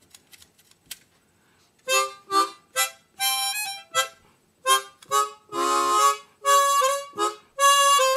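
Chromatic harmonica played in short notes and chords, some held, starting about two seconds in after a few faint handling clicks. Some of its notes sound sour.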